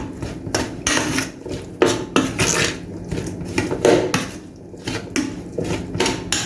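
Chicken pieces being stirred in a bowl to work in curry seasoning: irregular clinks and knocks of a utensil against the bowl.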